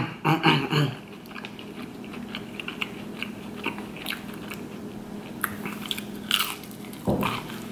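A person chewing and biting McDonald's chicken nuggets, with soft crunches and small wet mouth clicks and a louder burst about seven seconds in.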